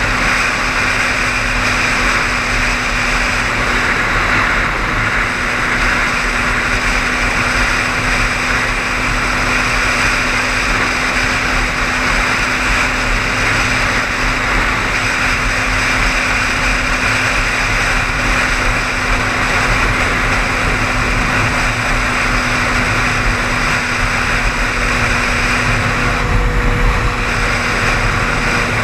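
A car driving steadily along a highway, with a constant rush of road and engine noise and a steady hum.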